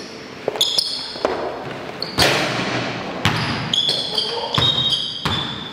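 A basketball bouncing hard on the court every second or so during play, with high squeaks of sneakers on the floor in between.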